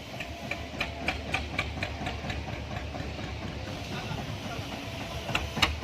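Small engine running with a steady low rumble and a hiss. A quick run of sharp ticks, about four a second, comes in the first two seconds or so, and a few louder knocks come near the end.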